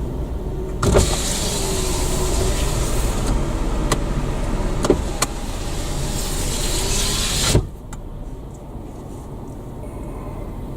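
A car's power window is lowered about a second in, its motor whining as outside road noise pours into the cabin. Near the end the window motor runs again and the glass shuts with a sharp knock, cutting the outside noise off abruptly.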